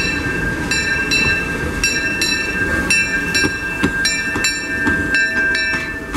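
Bell of the C.K. Holliday 4-4-0 steam locomotive ringing steadily, struck about twice a second with a lingering metallic ring. Under it, the rumble of the locomotive and its passenger cars rolling past.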